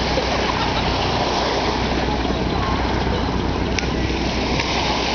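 Shore ambience: small waves washing onto a sand beach under a steady low wind rumble on the microphone, with faint children's voices.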